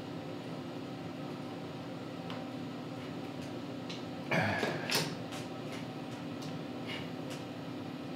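Steady low hum with faint scattered ticks. About four seconds in, a brief whir falls quickly in pitch and ends in a click as the snowblower engine is turned over by its recoil pull starter with the spark plug out.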